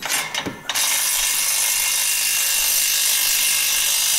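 Impact gun running continuously for about three and a half seconds, driving a muffler clamp nut tight on a Corvette C7 exhaust, after a few short clicks of the tool being set on the nut.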